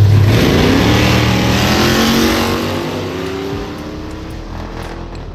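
Race car engine going by close and loud at speed, its pitch dipping as it passes and then rising as it accelerates away, fading over the last couple of seconds.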